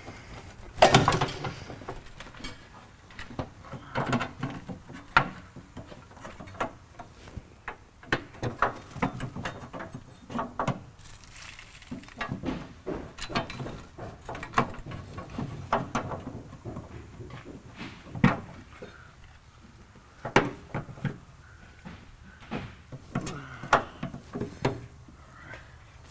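Irregular metal clanks, knocks and rattles from fuel-tank straps being unhooked and the fuel tank being worked loose onto a jack, with the loudest knock about a second in and a few more sharp knocks later on.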